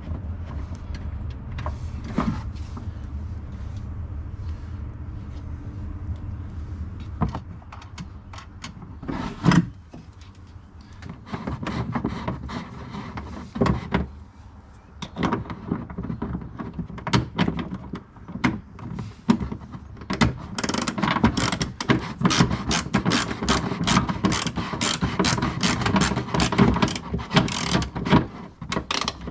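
Hand tools at work on a car's rear shock absorber assembly: a low steady hum at first, then scattered clicks and knocks, and in the last third a long run of rapid metallic clicking.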